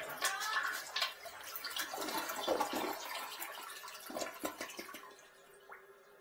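Water splashing and dripping in a toilet bowl as gloved hands wipe the bowl and handle a thin inspection-camera cable, in irregular clicks and splashes. They die down about five seconds in, leaving a faint steady hum.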